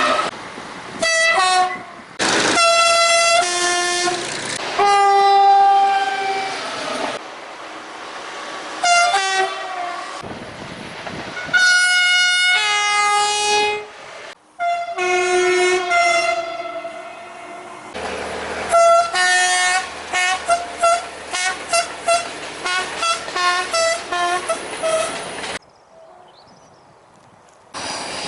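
SNCF train horns sounding in a series of separate recordings, cut abruptly one into the next: held two-note blasts and short toots, then a rapid run of short toots at changing pitches, played like a tune. Near the end there is a quiet gap of about two seconds before another horn starts.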